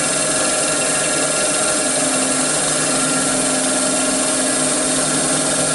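RMC V40 CNC mill running steadily, its spindle turning an inverted boring head that back-bores the rear thrust face of a Subaru engine block on a final cut while the table moves it around in a circle.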